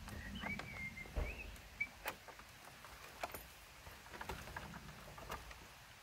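A quiet outdoor scene. A single thin, wavering bird call comes in the first couple of seconds, and scattered light knocks and clicks come as the wooden field gate is handled.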